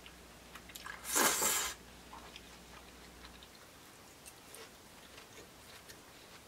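Curry udon noodles being slurped loudly once, about a second in, followed by quiet chewing with faint small mouth clicks.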